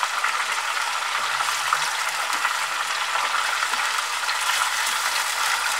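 Marinated fish pieces shallow-frying in hot mustard oil: a steady sizzle with dense crackling, as a wooden spatula turns the pieces over in the pan.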